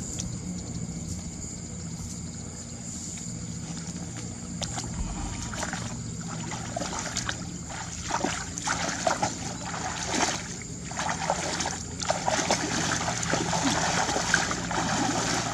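Water splashing and sloshing in irregular bursts, starting about five seconds in, over a steady low hum.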